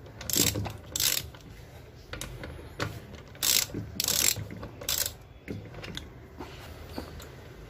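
Ratchet wrench clicking in about six short bursts as a socket turns the end-plate nuts of a Lambretta scooter gearbox loose. It goes quieter for the last couple of seconds.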